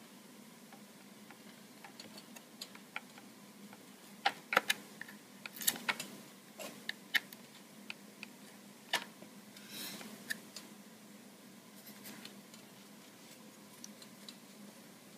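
A thin metal blade prying along the seam of an Android tablet's back case, making scattered small clicks and scrapes as the case's edge clips let go. Most of the clicks come a few seconds in.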